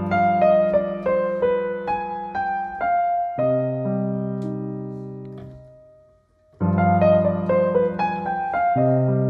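Notation-software piano playback of a bebop lick: a quick run of single notes built on the G7 flat 9 scale (fifth mode of the harmonic minor) over a held low chord that changes once, G7 flat 9 resolving to C minor 7, ending on a long fading note. The lick starts over from the beginning about six and a half seconds in.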